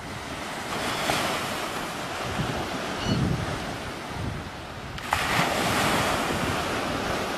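Surf breaking and washing on a sandy beach, with wind buffeting the microphone. It grows louder about five seconds in.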